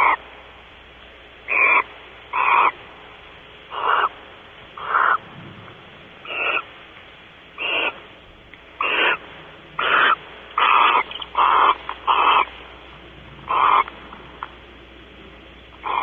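Barn owl giving a long series of rasping hiss calls, each about half a second long, roughly one a second and bunching closer together in the middle.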